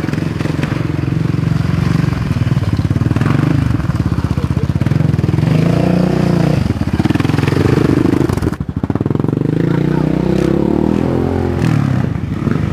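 Racing quad (ATV) engines running hard, the pitch rising and falling with the throttle, with a brief drop-off a little under nine seconds in.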